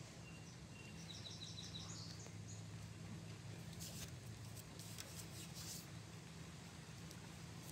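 A small bird gives a quick run of about ten high chirps, starting about a second in and lasting a second and a half. It sounds over a faint, steady low hum. Scattered soft crackly taps follow in the middle of the stretch.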